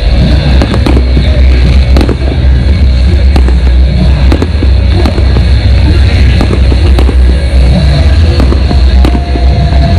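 Many fireworks and firecrackers going off across a city: a dense, irregular run of sharp cracks and bangs over a heavy low rumble.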